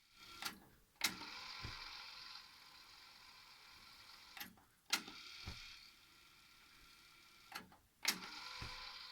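Yamaha KX-300 cassette deck's transport being operated three times: each time a soft click, then a sharp mechanical clack, then a short whir of the mechanism that fades out.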